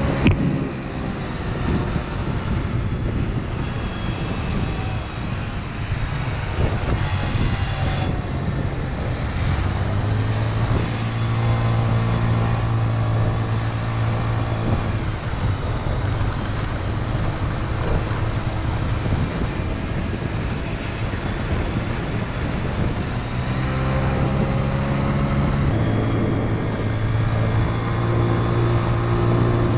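Scooter engine running steadily under way, heard from on board, with wind noise on the microphone. The engine note shifts in pitch a few times as the speed changes.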